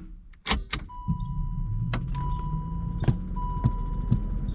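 1987 Pontiac Fiero GT's electrics switched on with a weak battery: a steady electronic warning tone with short breaks, a low electric motor hum and light regular clicks about twice a second. Two sharp clicks come about half a second in.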